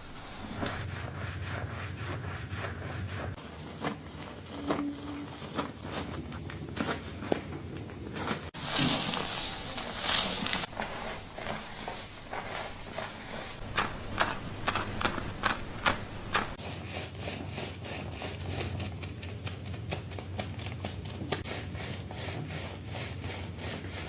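Fingertips scratching and rubbing a shampooed scalp, with many quick crackling strokes through the wet hair. A short, louder hiss about nine seconds in.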